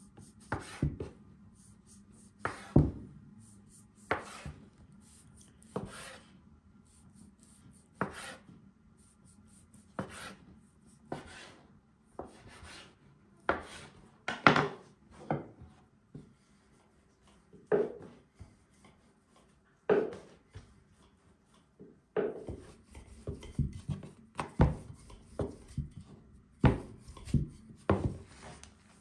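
A knife slicing through a rolled log of soft dough, each cut ending in a sharp knock on a wooden board, about one every one to two seconds. In the last several seconds the knocks and taps come quicker and in clusters.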